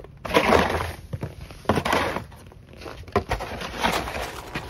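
A plastic snow shovel scraping and pushing snow across wooden deck boards, in a few irregular strokes.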